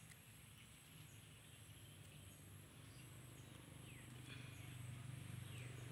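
Faint rural ambience: a steady high-pitched insect drone with a few short falling bird chirps, and a low hum that grows louder near the end.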